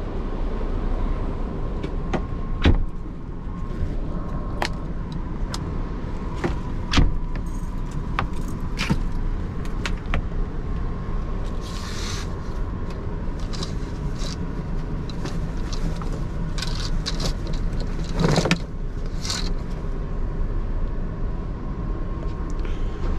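Steady low hum and rumble inside a stationary Amtrak Viewliner II sleeping car, with a faint steady whine. Over it come scattered clicks and knocks and brief rustles as the roomette's sliding door latch is worked and its curtains are drawn across.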